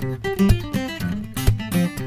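Background music: acoustic guitar picking and strumming over a steady beat.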